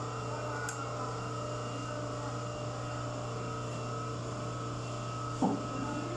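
Electric brake lathe motor running with a steady hum, with a single knock near the end.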